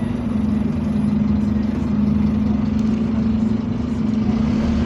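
Scania bus engine running with a steady hum that stays even throughout.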